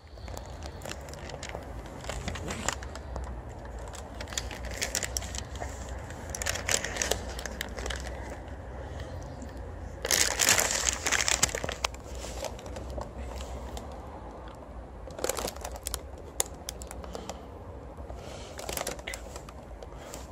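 A bag crinkling in irregular bursts as it is handled, with the loudest stretch lasting about a second and a half about ten seconds in.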